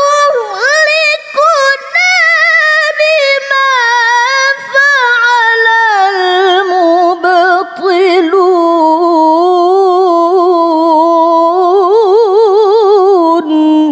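A woman's voice reciting the Qur'an in melodic tilawah style, drawing out one long ornamented phrase. It starts high with brief breath breaks, then settles lower into a wavering, trilled hold near the end before stopping abruptly.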